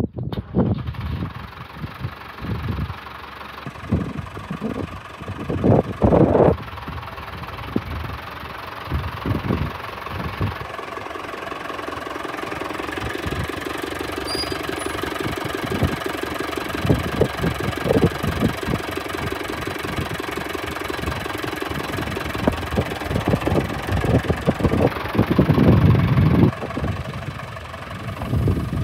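Case David Brown 990 tractor engine running as the tractor is driven slowly. A steady drone is broken by several louder low rumbling bursts, the strongest about six seconds in and again near the end.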